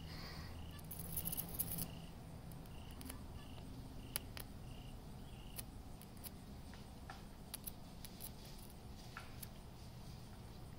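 Crickets chirping steadily, about two short high chirps a second. About a second in comes a brief crackling hiss from the low-voltage carbon-rod arc, and scattered faint sharp clicks follow.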